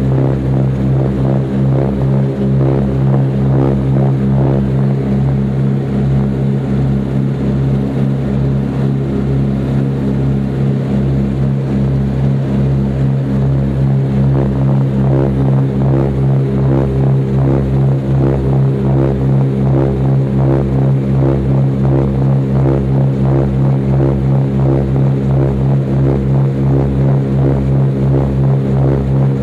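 Twin de Havilland Gipsy Major engines and propellers of a DH84 Dragon biplane running steadily in cruise, heard from inside the cabin. The drone carries a slow regular pulse, a little more than once a second.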